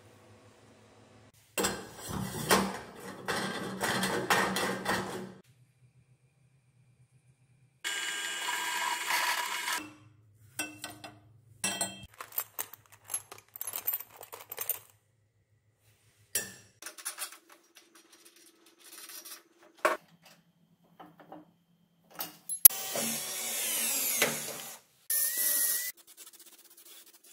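Workshop tool noise: several short bursts of a power tool working, with clicks and knocks of metal parts being handled between them.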